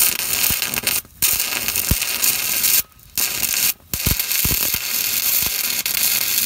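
Stick welder's arc crackling and sizzling steadily as a flux-coated electrode burns into a muffler joint. The arc breaks off briefly three times, and a few low thuds sound through it.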